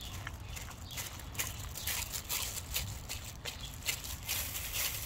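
A dog licking chunky peanut butter off plastic wrap: irregular wet licks and smacks of the tongue, several a second, busier and louder near the end.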